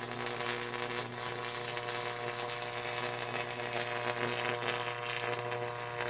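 Homemade Jacob's ladder running: the high-voltage arc and its transformer give a steady, loud electrical hum-buzz with a crackle over it as the arc climbs the wires.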